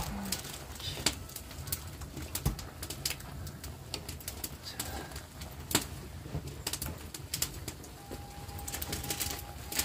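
A dove cooing low in the background, with scattered sharp clicks throughout. A faint steady tone comes in near the end.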